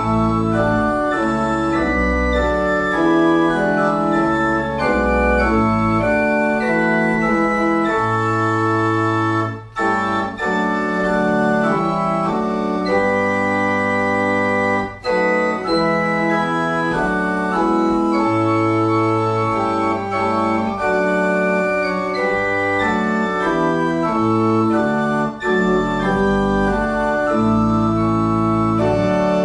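1969 Wicks pipe organ playing sustained chords over held pedal bass notes, with short breaks between phrases about ten and fifteen seconds in.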